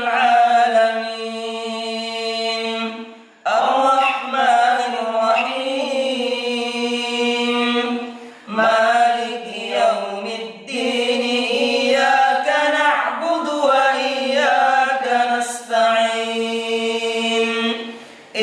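Male voice chanting Qur'an recitation in Arabic, a melodic line with long held, ornamented notes broken by short pauses for breath.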